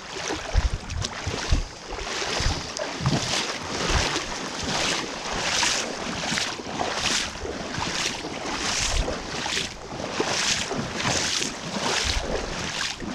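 Legs in waders pushing through a strong river current in steady strides, one swish of water a little more than once a second over the rush of the current. A few low bumps on the microphone in the first couple of seconds.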